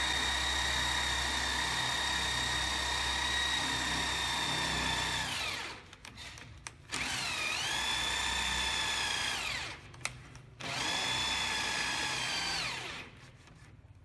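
Electric drill boring into the wooden edge of a door, its motor running at a steady whine. It winds down and restarts twice before stopping near the end.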